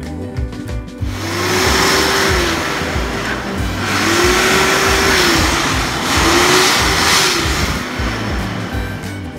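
Electric hand dryer blowing, a loud steady rush of air that starts about a second in and dies away near the end.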